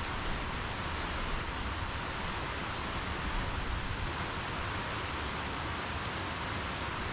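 River rapids rushing steadily over rocks, a constant even hiss of white water.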